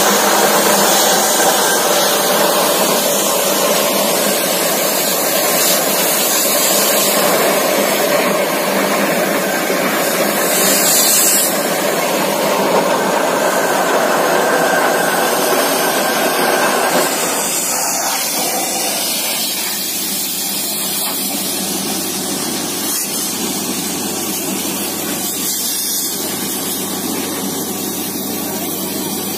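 Truck-mounted borewell drilling rig at work: its engine and air compressor running while compressed air drives water and slurry up out of the borehole, a steady, loud rushing noise. It eases off a little about 17 seconds in.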